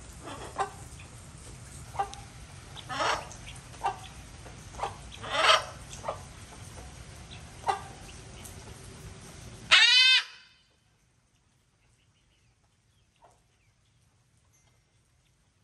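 Chickens clucking in a series of short calls, then one loud, drawn-out squawk about ten seconds in, after which the sound drops to near silence.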